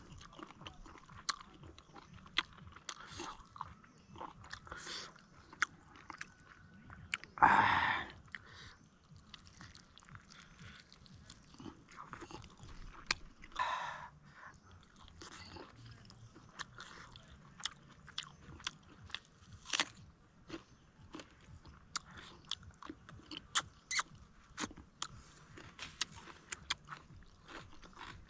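Close-up chewing and crunching of buffalo ribs, with many sharp, irregular crunches. Two longer, louder noisy bursts stand out, about seven and fourteen seconds in.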